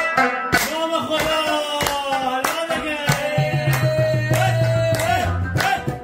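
Background music: a song with a long wavering melody line over regular drum strikes, with a deep drum tone in the second half.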